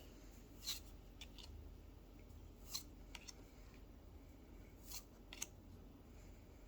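Faint short rustles and clicks from Pokémon booster packs and cards being opened and handled, about half a dozen of them spread a second or so apart.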